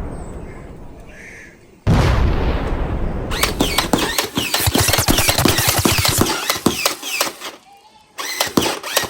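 Gunfire sound effects: a loud boom that fades, a second boom about two seconds in, then rapid automatic fire from about three seconds in, pausing briefly and starting again near the end.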